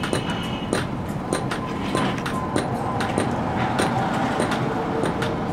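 Hammer striking metal in a steady rhythm, about one blow every half second or so, each with a short ringing tone, over a continuous low rumble.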